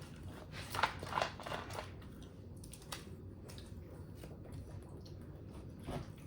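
Close-up eating: a few crisp crunches and chewing, with a cluster of short crackles in the first two seconds and single ones near three and six seconds in.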